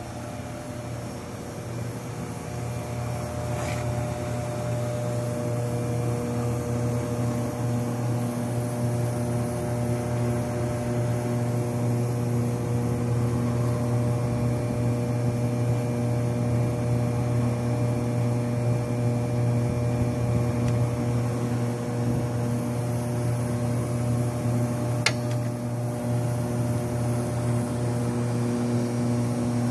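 Beckman J2-21 refrigerated centrifuge running: a steady electric hum from its motors and refrigeration, growing somewhat louder over the first several seconds as the JA-20 rotor begins to spin up, then holding steady. A single sharp click comes near the end.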